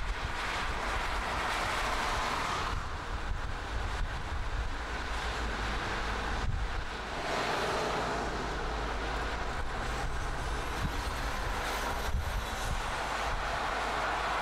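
Volkswagen CrossTouran driving on a road: steady tyre and wind rush over a low rumble, with a few abrupt shifts in tone where the shots change.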